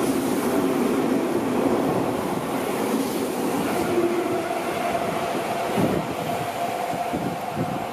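Seibu 6000-series electric train running past with wheels clattering over rail joints, then slowing into a station. A steady whine comes in about halfway through, and the train grows quieter toward the end.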